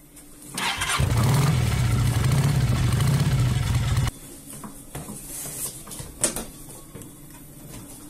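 A motorcycle engine-start sound effect: an engine starting and running steadily for about three seconds, then cutting off suddenly. Quieter plastic rattles and a few clicks follow.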